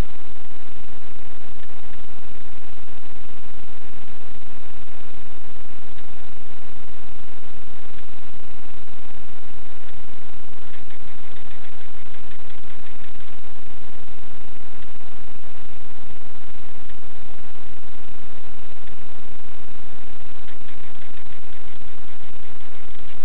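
Loud, steady static hiss, with a faint buzzing patch about halfway through and again near the end.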